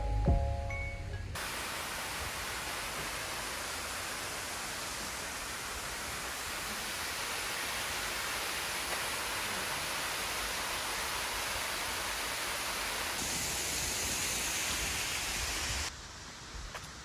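A few notes of music end about a second in. They give way to a steady, even rushing noise that cuts off suddenly near the end.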